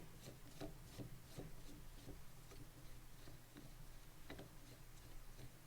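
Faint scattered clicks and rubbing as the drill's auxiliary side handle clamp is screwed together by hand, over a low steady hum.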